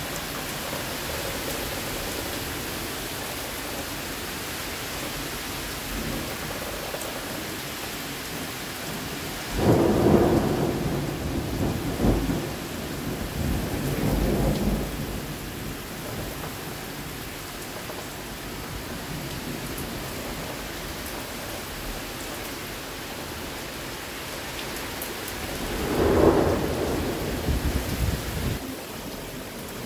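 Heavy rain pouring steadily in a thunderstorm. Thunder rumbles loudly twice: a long roll about ten seconds in that swells again a few seconds later, and a shorter one near the end.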